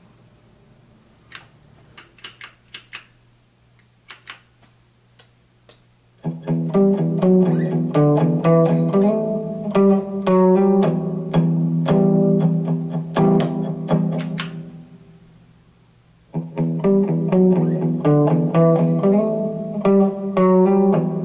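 Telecaster-style electric guitar played through a Zoom G5 multi-effects pedal and a Line 6 combo amp: a few faint clicks and plucked notes for about six seconds, then a loud riff of ringing chords and notes that fades out about fifteen seconds in and starts again a second later. The guitar is way out of tune.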